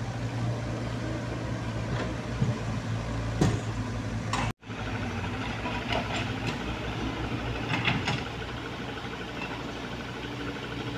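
Diesel engines running steadily: first a mini excavator's engine with a few sharp knocks, then, after a sudden break, a dump truck's engine as it creeps along a dirt road.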